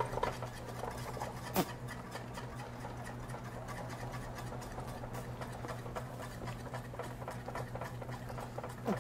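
Plastic-coated whisk beating thick béchamel sauce in a saucepan: a quick, even run of scraping strokes, with a steady low hum underneath and one sharp click about a second and a half in.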